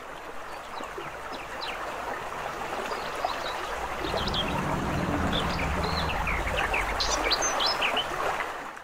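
A stream running steadily with birds chirping over it. The chirps grow thicker in the second half, and the sound fades out at the very end.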